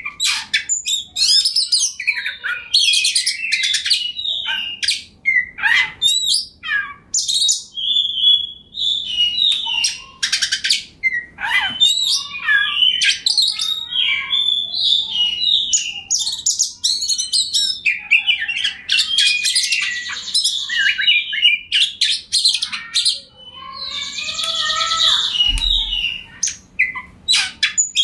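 Oriental magpie-robin singing a continuous, varied song of rapid whistles, trills and chattering notes, with denser, harsher buzzy passages in the second half.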